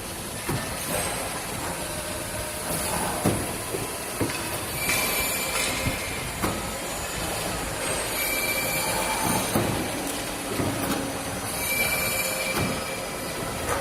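CNC hydraulic mandrel tube bending machine working through its automatic bending cycle: steady machine noise with metal knocks and short high squeals that recur about every three and a half seconds.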